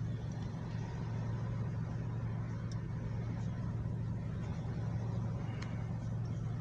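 Steady low rumble of a car heard from inside the cabin, with a couple of faint clicks.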